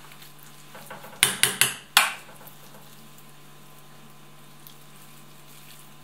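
A metal spoon knocks four times in quick succession against the rim of an enamel saucepan of minced fish stuffing, about a second in, as the filling is spooned out to stuff a pike.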